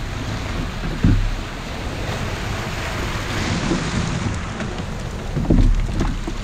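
Shallow ocean surf washing and swirling around a kayak hull, with wind buffeting the microphone; louder low gusts about a second in and again near the end.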